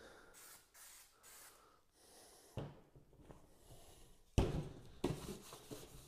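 Bare sheet-steel scooter fender handled on a workbench: faint rubbing at first, then a knock about two and a half seconds in and a loud clunk near four and a half seconds as it is set down, followed by a few lighter knocks.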